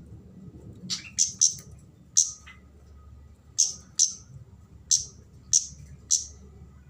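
A kemade flowerpecker giving sharp, high 'cit' call notes, about nine short chips spaced irregularly and sometimes in quick pairs, calling loudly as a challenge to rival birds.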